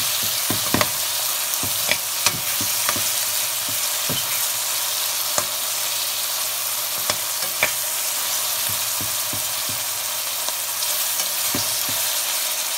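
Chopped red onions sizzling in oil in a steel pan, with a steady hiss. A perforated steel ladle stirs them, its edge clicking and scraping against the pan at irregular moments, most often in the first few seconds.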